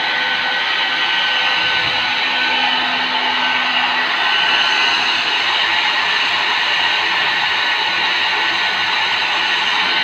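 Small handheld plastic hair dryer running steadily: an even rush of blown air with a thin, steady motor whine over it.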